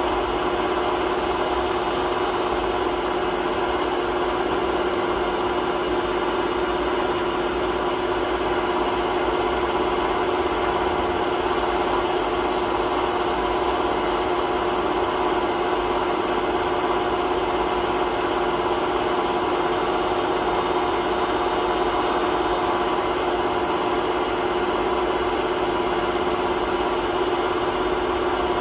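Hotpoint WMA32 washing machine spinning steadily at high speed: a constant hum with a strong steady tone over a rough, even rumble from its worn-out drum bearings.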